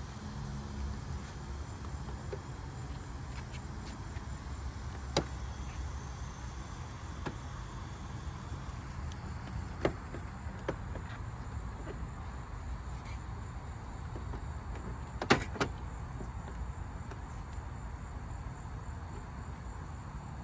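Sharp plastic clicks a few seconds apart, the loudest a quick double click about fifteen seconds in, as the retaining clips of a Honda Accord OEM sport grille are pressed into place in the bumper. Under them a steady low rumble.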